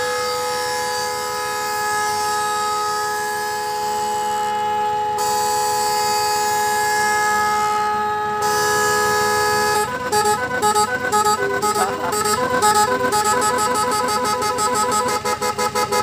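Multi-tone horn of an odong-odong tourist mini-train, sounding a long steady chord of several notes. About ten seconds in it switches to a warbling tune that steps between pitches, then near the end to a fast pulsing pattern.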